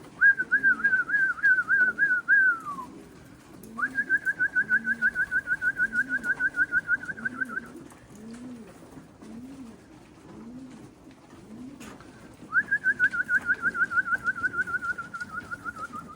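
Racing pigeons cooing at the loft, a run of low repeated coos. Three times a louder, high, fast-pulsing whistled trill sounds over them, the first and last sliding down in pitch at the end.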